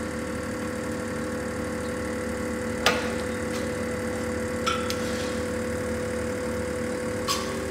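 A concrete compression testing machine's hydraulic pump hums steadily as the load on a concrete specimen rises toward failure. Three sharp cracks come from the specimen under load, the loudest about three seconds in and the others near the middle and near the end.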